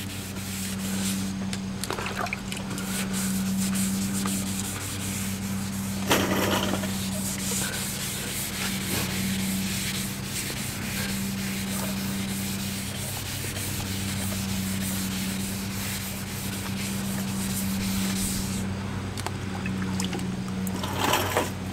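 Wet sandpaper on the hard side of a sanding block, rubbed back and forth by hand over the water-wetted painted body of a 1990 Jeep Wrangler YJ, cutting down the guide coat. A steady low hum runs underneath.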